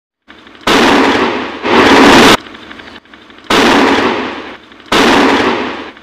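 Large firecrackers exploding: four loud bangs, each followed by about a second of echoing blast noise that fades away.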